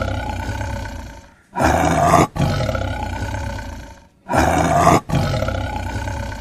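Lion roar sound effect played over and over: a roar tailing off, then two more identical roars about two and a half seconds apart, each with a short break shortly after it begins.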